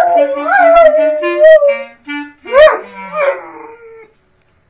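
A dog whining and howling in a wavering, up-and-down wail over steady held clarinet notes, with a sharp rising yelp about two and a half seconds in. Both stop about four seconds in.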